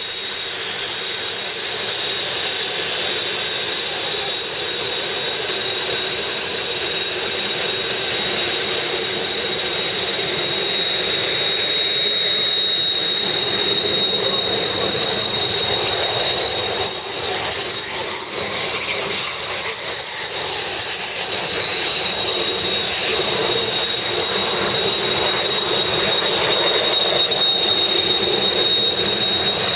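Kawasaki T-4 jet trainer's twin turbofan engines running: a steady high-pitched whine over a rushing roar. The whine rises and falls back once a little past the middle.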